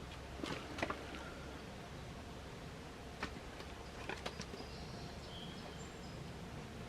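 Scattered sharp knocks and snaps of kindling wood being cut: a quick cluster under a second in, then single strikes around three and four seconds in. Faint high bird chirps follow near the end.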